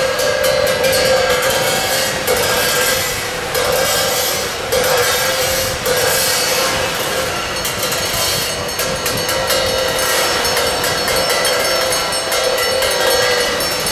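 A loud horn-like held tone that breaks off and starts again about every second, over a continuous clatter of clicks.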